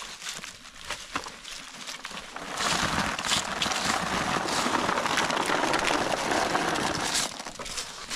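Acorns poured from a plastic bucket into a plastic sack: a dense rattling patter with the sack crinkling, starting a few seconds in and lasting about four and a half seconds. Before it there are only light scattered clicks and rustles of handling.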